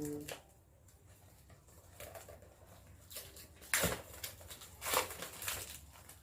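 Plastic wrapping cover being torn open and crinkled by hand, in irregular rustles and rips, the loudest about four and five seconds in.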